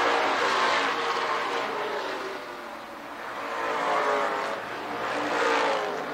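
Stock cars racing around an oval track, several engines running hard with their pitch rising and falling as cars go by. The sound dips about three seconds in and swells again as cars come past.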